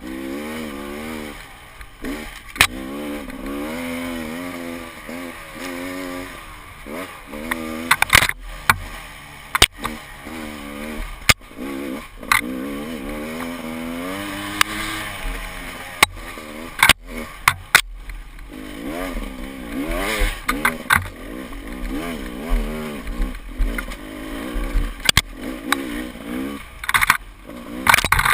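Enduro dirt-bike engine revving up and down over and over as the throttle is worked, with scattered sharp knocks and clatter throughout.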